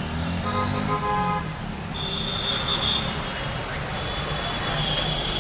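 Motorbike and car traffic passing on a wet city road, engines running under a steady hiss. A vehicle horn sounds briefly about half a second in, and a high thin tone sounds twice later on.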